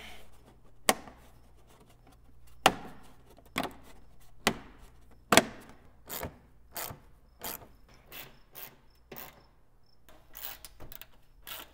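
A few sharp separate clicks, then from about six seconds a hand ratchet worked in short regular strokes, a little under two a second, driving in headlight mounting bolts.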